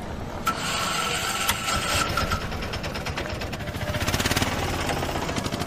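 A small engine running steadily with a rapid, even pulse, and a thin steady whine over the first two seconds or so.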